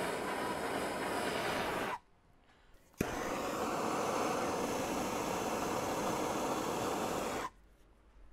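Heat gun running steadily and switching off about two seconds in. A second later it comes back on with a click and runs until shortly before the end, warming the barrel's chamber ahead of a Cerrosafe chamber casting.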